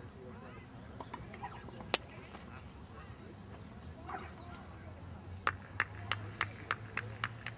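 A quick run of about eight sharp handclaps, roughly four a second, in the second half, with one single clap about two seconds in. Faint distant voices sit underneath.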